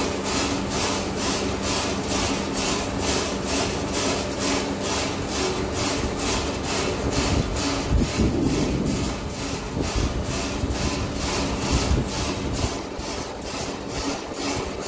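Saygül Tarım raisin lifting and winnowing machine running: a steady mechanical hum under a rasping hiss that pulses evenly about three times a second, with a few dull thuds near the middle.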